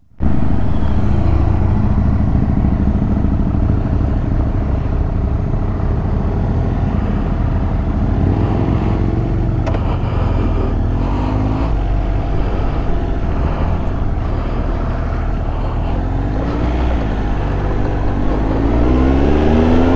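Triumph Tiger Explorer 1200's three-cylinder engine running as the motorcycle rides along a lane, with the revs rising and falling as it pulls through the gears, climbing clearly near the end.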